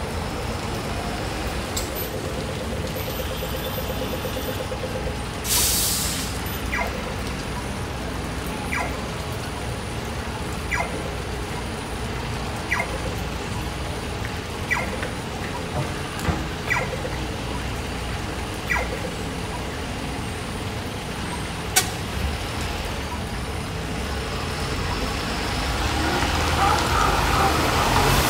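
A bus running, with a short air-brake hiss about five seconds in and faint regular clicks about every two seconds.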